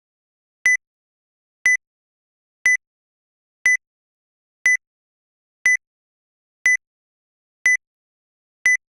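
Countdown timer beeps: one short, high-pitched electronic beep each second, nine in all, marking off the seconds of a ten-second countdown.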